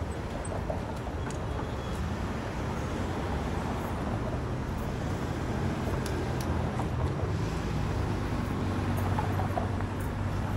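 City traffic at a streetcar intersection: cars driving past close by and a TTC Flexity Outlook streetcar moving slowly, over a steady low hum that grows a little louder in the second half.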